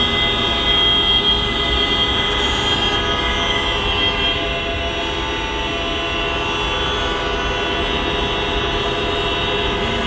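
Many vehicle horns held down together, a loud steady chord of overlapping tones; a few of the higher ones drop out about four seconds in. This is the traffic sounding its horns for the nationwide minute of silence.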